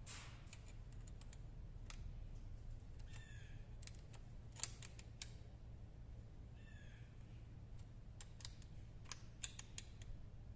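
Faint scattered small metal clicks as a throttle cable's lock nut and barrel adjuster are threaded and tightened by hand on a small engine carburetor, over a low steady hum. Two short faint squeaky chirps stand out, about three and a half seconds apart.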